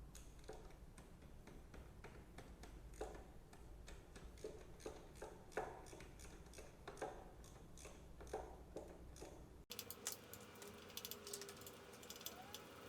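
Faint, scattered clicks and light knocks of small tools and parts being handled. About ten seconds in it cuts to quicker, denser ticking over a steady hum.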